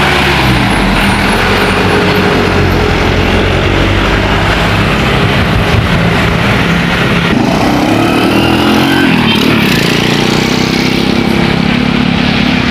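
Tour bus diesel engine running as the bus moves off, its pitch rising about seven to nine seconds in as it revs up.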